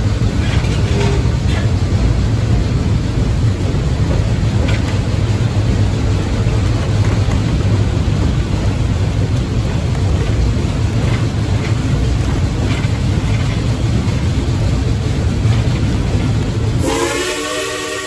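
Steady low rumble of a steam-hauled excursion train rolling along the track, heard from aboard, with a few faint clicks. Near the end the steam locomotive's whistle blows a chord of several tones.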